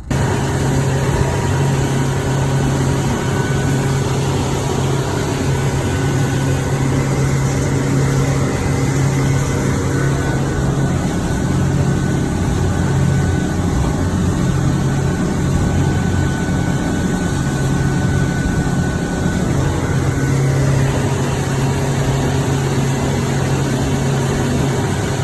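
Fishing boat's engine running steadily, a constant low drone under a steady rushing noise.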